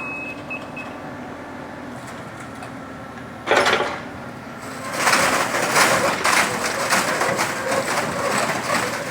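Mini truck's small Kubota engine running steadily, with a short loud clatter about three and a half seconds in; from about five seconds in the engine noise turns much louder and rougher.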